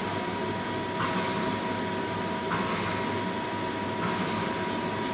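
Kitchen range hood fan running steadily over the stove, a constant whir with a steady whine and a faint swell about every second and a half.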